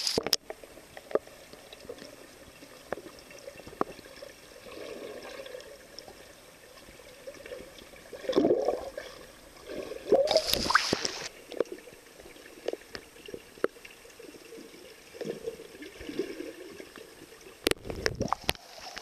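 Pool water moving around a camera held just under the surface: a low churning with scattered clicks, and louder rushes of bubbles about eight and ten seconds in and again near the end.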